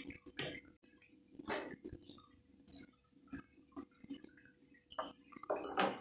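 Kitchen knife slicing garlic cloves on a cutting board: irregular, separate taps of the blade on the board, with a louder cluster near the end.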